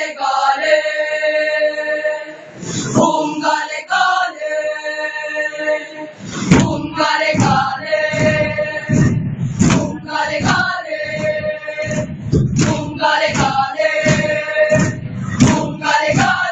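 A large group of voices singing held notes together, phrase after phrase, as part of a choral recitation. From about six seconds in, a heavier pulsing beat runs underneath the singing.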